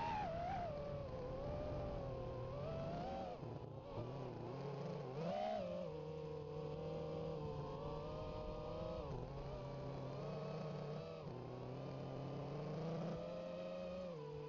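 FPV racing quadcopter's brushless motors and propellers whining, heard from on board, the pitch rising and dipping with the throttle, with sharp surges at the start and about five and a half seconds in.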